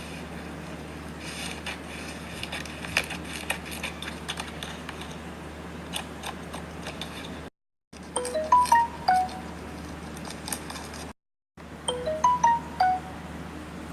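Slime being squished by hand, making irregular sticky clicks and pops for the first seven seconds or so. Then, after a brief cut to silence, a short chime jingle of a few rising then falling notes plays, and it plays again after a second cut.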